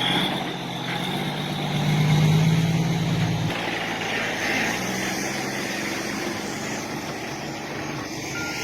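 Heavy logging truck's engine running steadily, growing louder about two seconds in and then easing off.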